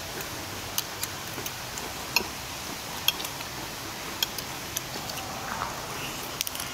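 Eating at a table: irregular sharp clicks and clinks of a metal fork and spoon on ceramic plates, mixed with the crunch of fried crackers being bitten, over a steady background hiss.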